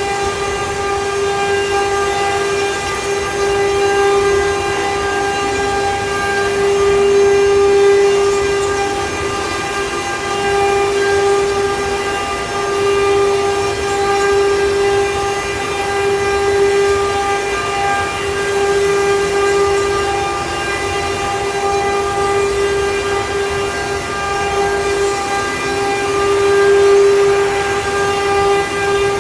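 CNC wood-carving router's spindle running at speed with a steady, high whine. Fainter tones glide down and back up now and then.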